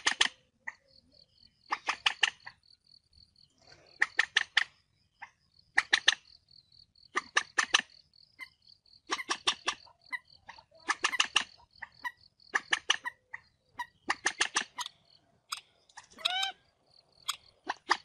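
Common moorhen fighting calls: repeated bursts of rapid, harsh clicking notes, a cluster every second or two, with one longer sweeping call near the end.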